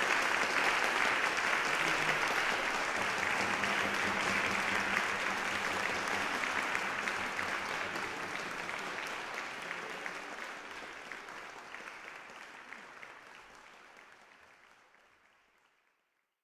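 Audience applauding, a dense patter of clapping that fades out gradually over the second half and is gone just before the end.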